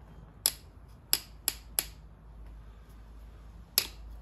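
Sharp clicks and clinks of hand tools being handled: one about half a second in, three in quick succession a second or so in, and a last one near the end.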